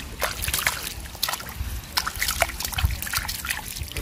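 Hands digging and scooping in shallow muddy water: a run of small splashes and sloshes, with water trickling and dripping off what is lifted from the mud.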